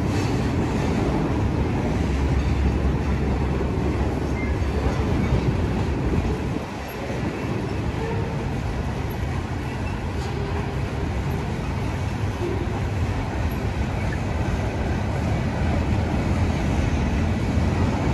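Freight train of autorack and tank cars rolling past on the tracks, a steady rumble of wheels on rail that dips briefly about six seconds in.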